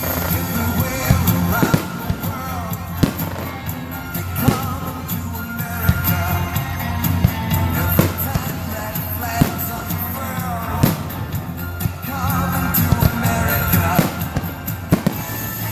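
Fireworks going off in irregular sharp bangs over loud music with a singing voice.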